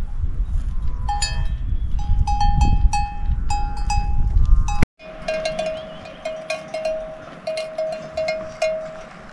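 Bells on grazing cattle ringing with an uneven clank, about two strikes a second. For the first half, wind rumbles on the microphone. About halfway through the sound cuts, and a lower-pitched bell carries on ringing.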